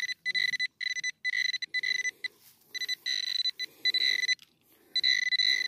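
Metal detector beeping over a buried target: a string of same-pitched, high electronic tones, each a fraction of a second long, repeating as the coil passes back and forth, a signal the detectorist takes for a coin.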